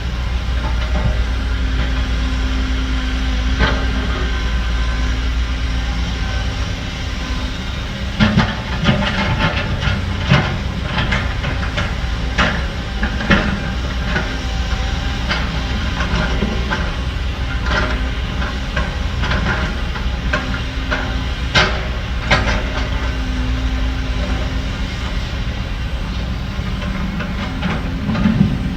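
Heavy diesel earthmoving machinery running with a steady low drone, and a run of sharp knocks from about eight seconds in until about twenty-three seconds in.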